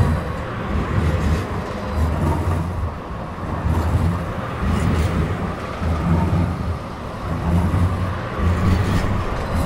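Light rail train passing close by at low speed: a steady rolling rumble of wheels on street rails, with a low pulse about once a second.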